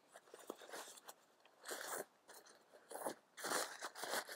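Crinkling, rustling nylon of a tent stuff sack being handled as its compression straps are loosened, in several short bursts that come mostly in the second half.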